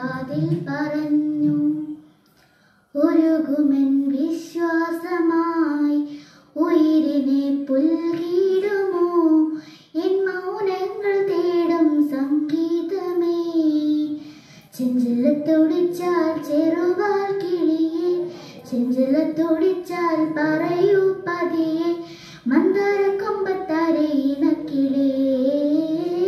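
A girl singing solo into a microphone, with no accompaniment, in phrases of a few seconds with short pauses between them.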